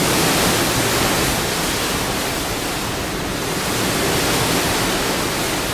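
Steady, loud rushing noise of wind and sea.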